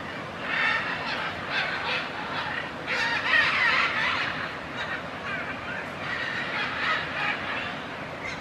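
Several military macaws calling at once: many overlapping squawks, loudest about three seconds in.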